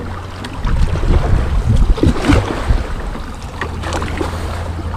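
Double-bladed kayak paddle dipping and splashing in the water, stroke by stroke, over a steady rumble of wind on the microphone.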